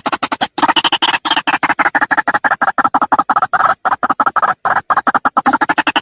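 White-breasted waterhen (ruak-ruak) calling: a rapid, unbroken run of short repeated notes, about nine a second, with a brief break about half a second in. It is a recorded call played as a lure to draw waterhens in.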